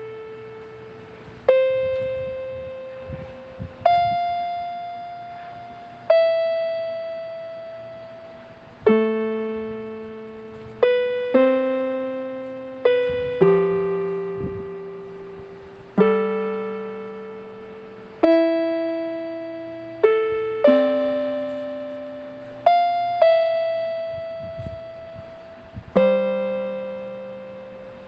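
Slow, sparse keyboard music: single notes and two-note chords struck about every two seconds, each left to ring and fade before the next.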